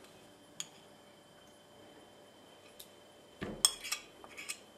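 Soft butter pushed off a plate with a metal spoon into a plastic mixing bowl: a dull thud as the butter lands a little over three seconds in, then a few light clinks of the spoon against the plate.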